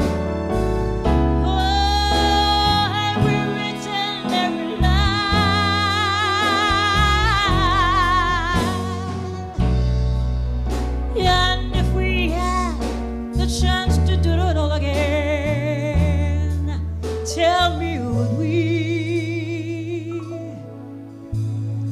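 A woman singing a soul song live into a handheld microphone, holding long notes with a wide vibrato, over instrumental backing with a low bass line.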